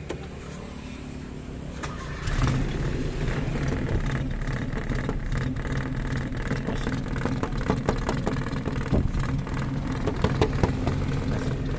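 A motor vehicle's engine running nearby. It comes in much louder about two seconds in and keeps going steadily, with scattered light taps and knocks over it.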